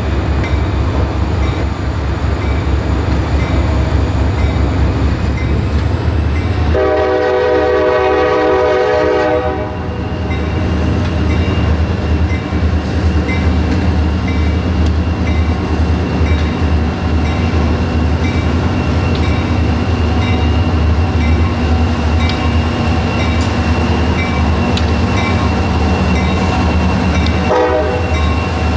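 CSX freight train's diesel locomotives rumbling steadily as they approach, with one long horn blast about seven seconds in and a short blast near the end. A bell rings at a steady beat through the second half.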